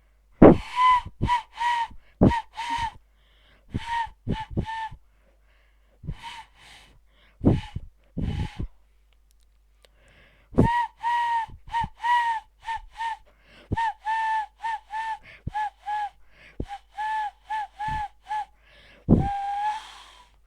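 Cupped-hands hand whistle (a hand owl-call) blown as a series of short, breathy hoots at a steady pitch, in several quick runs with pauses between them. Near the end comes one longer, slightly lower hoot.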